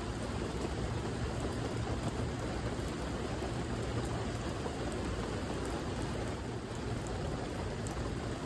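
Steady rain falling, with a dense, even hiss and scattered fine drop ticks.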